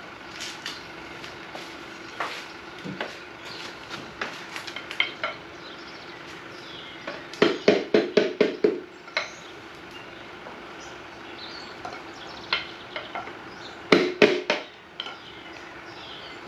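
Metal tools and engine parts clinking and knocking as the engine's rods and pistons are worked on. Scattered single clinks, a quick run of about eight sharp knocks about seven seconds in, and a shorter cluster about fourteen seconds in.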